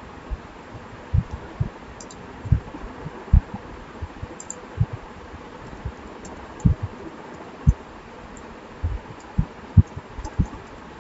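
Irregular dull low thumps, about one or two a second, and a few faint sharp clicks over a steady background hiss.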